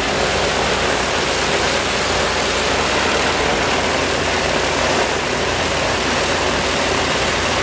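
Ilyushin Il-14T's left Shvetsov ASh-82T fourteen-cylinder radial engine running steadily with its propeller turning, a low even engine drone under a broad rushing noise.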